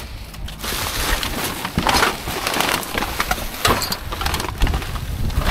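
Hands rummaging through building waste in a large bin: plastic wrapping and bags rustling, with irregular knocks and clatters of loose pieces.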